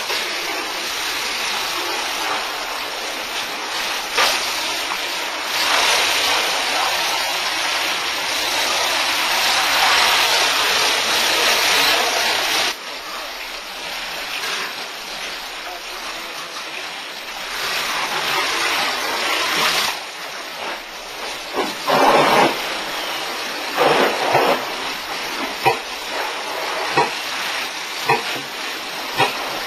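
Fire hose stream hissing and splashing against a wall, cutting off abruptly about thirteen seconds in and returning briefly later. Several short, loud knocks or thuds follow near the end.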